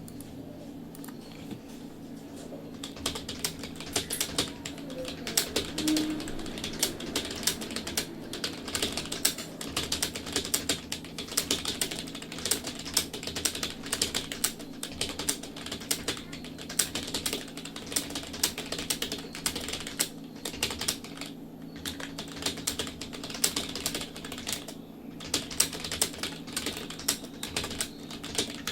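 Fast, continuous typing on a computer keyboard: rapid key clicks with a few short pauses, starting about three seconds in.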